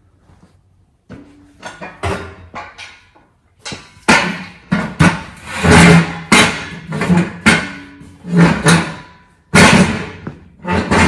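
A run of loud, irregular knocks, bangs and clatters of hard parts being handled and fitted, busiest in the second half.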